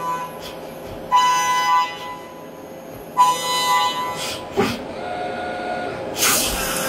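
Brother SPEEDIO U500Xd1 machining center face milling aluminum with a 63 mm face mill at 10,000 rpm: two cutting passes of about a second each, each a high, steady whine with overtones. About four and a half seconds in comes a knock, then a quieter machine whine as the tool withdraws and the table tilts, and a burst of hiss near the end.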